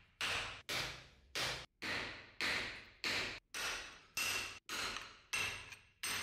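Hammer blows on the axe head held in a vise, knocking the broken wooden handle stub out of the eye: about ten sharp metallic strikes in quick succession, each ringing briefly before it dies away.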